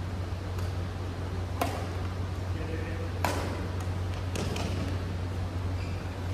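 Badminton rackets striking a shuttlecock in a rally: sharp hits, the loudest about one and a half and three seconds in, then two quick ones in a row a little past four seconds, over a steady low hum.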